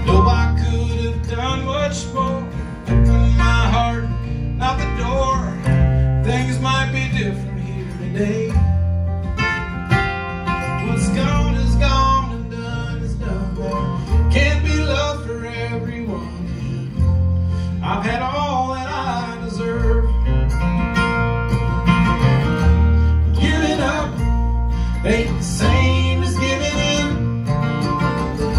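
Live acoustic string band playing an instrumental break in a country-folk song: strummed acoustic guitar, plucked upright bass and mandolin.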